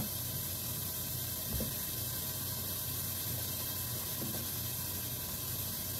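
Bacon sizzling steadily in a lidded pan as its fat renders, a constant hiss. A couple of faint soft knocks come from cloves of garlic being set on a wooden cutting board.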